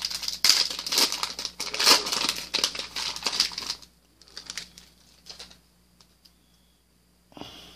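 Foil wrapper of a 2019 Panini Prizm baseball card pack being torn open and crinkled, for about four seconds. After that it goes much quieter, with a few faint ticks.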